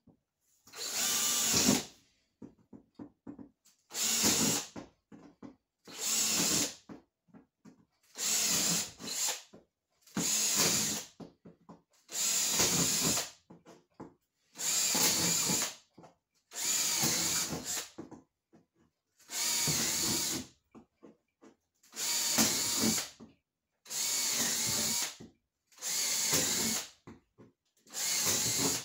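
Cordless drill boring a row of holes through a plywood floor laminated over foam, running in bursts of about a second each, roughly every two seconds, about thirteen in all, with light clicks between holes.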